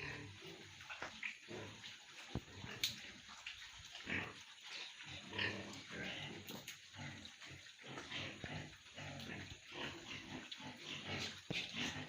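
Domestic pigs grunting in their pens, many short overlapping grunts without a break, with a couple of sharp knocks about two and a half seconds in.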